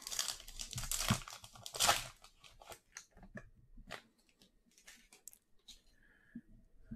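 Plastic trading-card pack wrapper torn open and crinkled, loudest over the first two seconds. It is followed by lighter rustling and clicks as the cards are slid out and handled, dying away by about six seconds.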